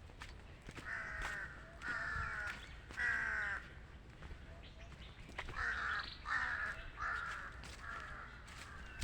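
Crows cawing: a bout of three harsh caws, then after a short pause a run of about five more.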